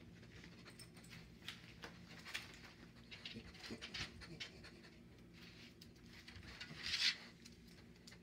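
Beagle sniffing and panting as it searches, with its paws clicking on the floor and scraping against a wooden door; one louder, short breathy burst about seven seconds in.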